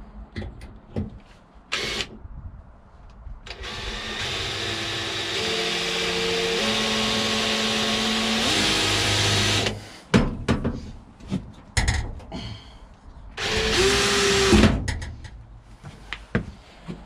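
Cordless drill boring a pilot hole down through the steel floor of a tool vault and the van floor beneath: one long run of about six seconds with the motor pitch shifting as it bites, then knocks, then a second short burst of about a second that winds down in pitch.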